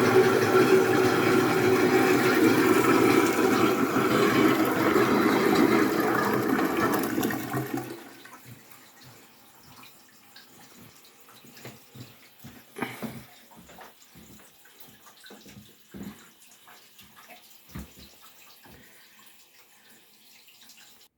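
Toilet flushing and refilling loudly with its muffler not working: a rushing, humming hiss of water that shuts off about eight seconds in, followed by faint drips and small clicks.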